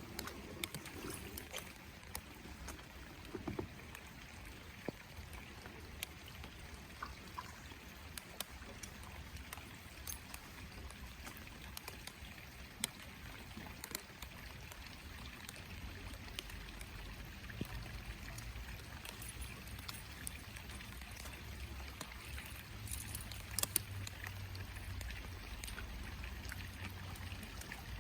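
Water noise around a small flat-bottomed jon boat on a river, with scattered small ticks. A low steady rumble comes in about halfway through.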